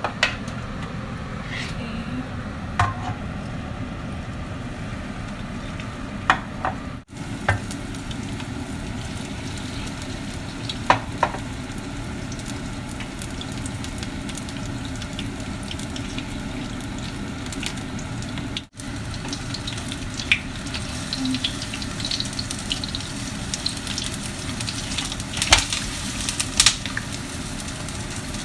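Batter-coated napa cabbage leaves sizzling in hot oil in a frying pan, with occasional light clicks.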